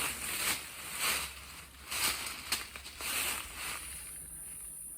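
Irregular rustling and crackling of leaves and branches being handled during hand-picking of water apples, with a few sharp snaps; it settles to a quieter stretch near the end.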